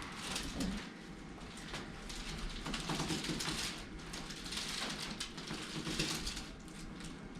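Soft, uneven rustling of clothing and table padding as a patient is shifted and positioned on a chiropractic table.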